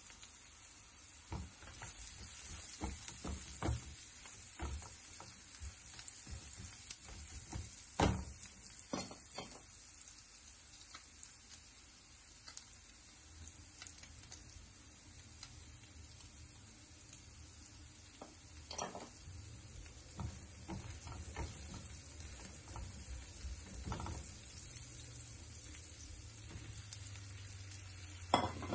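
Food sizzling in hot oil in a pan while it is stirred, with scattered knocks of the stirring spoon against the pan. The loudest knocks come about eight seconds in and near the end.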